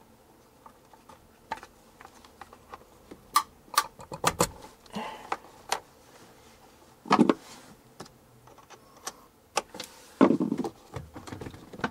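Hands working the plastic hose and water-line fitting at the back of an RV toilet's flush valve: a string of small sharp clicks and knocks, with two louder knocks in the second half.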